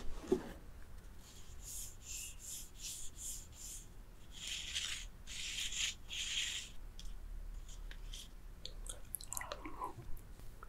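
A spoon scraping and stirring inside a paper cup close to the microphone: a quick run of short scratchy strokes, about three a second, then three longer, louder scrapes.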